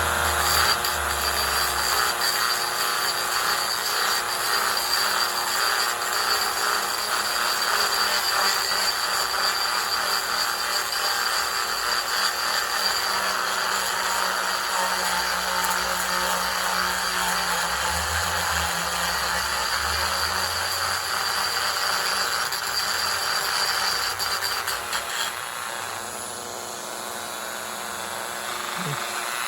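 Handheld power tool running steadily against a wooden pinewood derby block, with a thin high whine; it eases off a little near the end.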